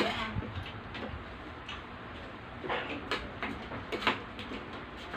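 Spoon and fork clinking and scraping on ceramic plates during a meal: scattered, irregular light clicks, a few sharper ones in the second half.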